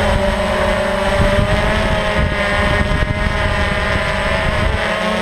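Quadcopter drone's motors and propellers whining steadily, heard loud and close through the camera mounted on the drone itself, with wind on the microphone.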